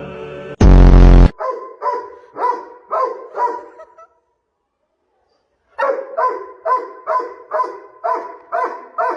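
A loud, short buzz about half a second in. Then a dog barks in a steady rhythm about twice a second, stops for a couple of seconds in the middle, and starts barking again.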